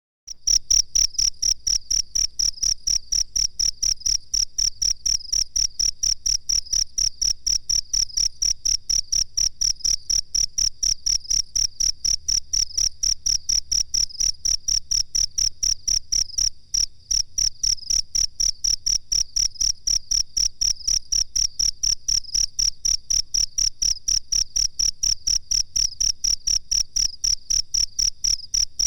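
Cricket chirping in a fast, even rhythm of high-pitched pulses, about three to four a second, with one brief break just past the middle.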